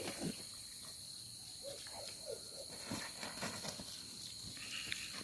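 Steady, faint, high-pitched insect chirring in the fields, with a few faint short sounds underneath.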